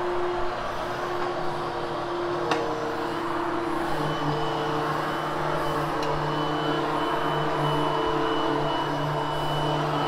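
Upright vacuum cleaner running steadily as it is pushed over a freshly cleaned polyester carpet. Its motor hum changes pitch about two and a half seconds in, with a sharp click at that moment, and a thin high whine joins soon after.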